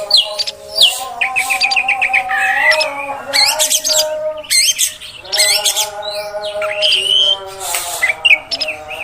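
Oriental magpie-robin (kacer) singing a fast, varied song of whistles, trills and chirps, with a steady lower drone underneath.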